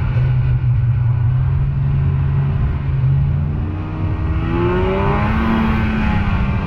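Snowmobile engine running under way, easing off briefly about four seconds in and then accelerating, its pitch rising.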